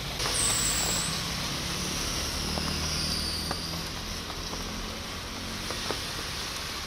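Cars driving through deep floodwater in heavy rain: a steady rush of spraying water and rain hiss, with a faint engine whine. It swells suddenly just after the start and slowly eases off.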